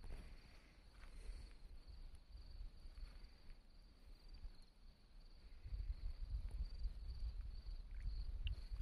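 Faint crickets chirping in a steady high trill. A low rumble grows louder about halfway through.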